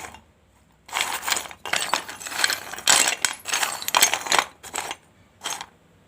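Fired clay of a gullak (clay money pot) being bitten and chewed: a dense run of sharp, crackling crunches for about three and a half seconds, then two short crunches near the end.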